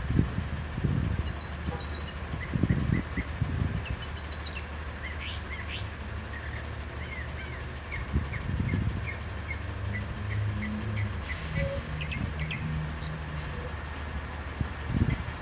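Northern mockingbird singing a string of varied phrases: a fast trill given twice, a long run of short repeated chirps, then steep down-slurred whistles near the end. Low thumps come and go underneath.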